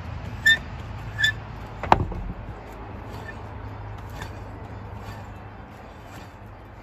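Four-way cross lug wrench on wheel lug nuts as they are spun on and lightly snugged: two short metallic clinks, a louder clank just before two seconds in, then a few fainter ticks, over a steady low hum.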